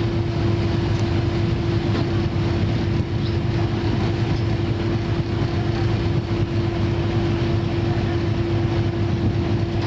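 A boat's engine running at a steady speed: a constant drone with one unchanging hum over a rushing noise.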